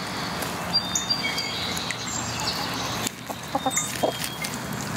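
Backyard hens clucking as they forage on a compost pile, with small pecking and scratching sounds.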